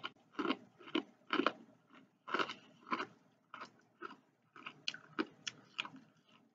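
Close-up crunching and chewing of spicy rolled tortilla chips, Takis-style: a quick, uneven run of crisp crunches, about two a second.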